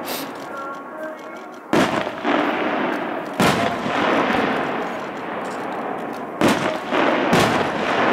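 Aerial firework shells bursting with four sharp bangs, the last two about a second apart. Each bang trails off in a rolling echo over a continuous background din.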